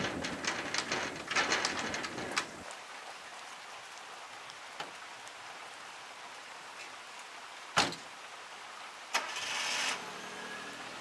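Sliding doors rattling and clicking shut for the first couple of seconds, then, over a steady hiss, a Suzuki Jimny's door shuts with one loud thump about three-quarters through; a second knock and a short burst follow as the engine is started, and it then runs at a low idle near the end.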